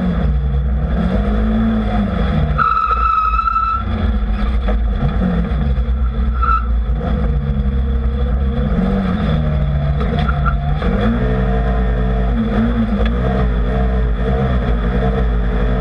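Race UTV engine heard from inside the cab at full race pace, its pitch rising and falling over and over as the throttle goes on and off through the trail's turns, over steady rough rumble and chassis noise. A brief high whistle-like tone sounds about three seconds in.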